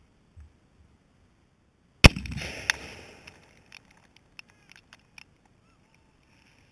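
An exploding target set on top of a target board detonates with one sharp, very loud blast about two seconds in, leaving a short noisy tail. A second crack follows about half a second later, then scattered small ticks over the next couple of seconds.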